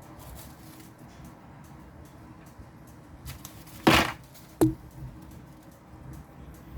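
Two sharp clicks from handling the phone and tools on a work surface, the louder about four seconds in and a shorter one just over half a second later, against quiet room tone.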